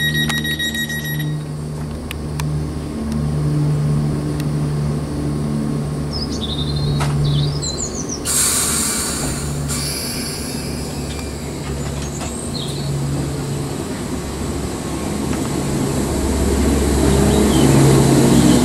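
Southern Class 455 electric multiple unit pulling out of the platform, its traction equipment humming and the running noise growing louder as it gathers speed. There is a brief hiss of air about eight seconds in.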